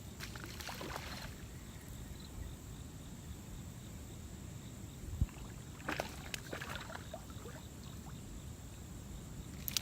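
Steady low rumble of wind and water around a small fishing boat, with scattered clicks and knocks of gear being handled and a dull thump about five seconds in.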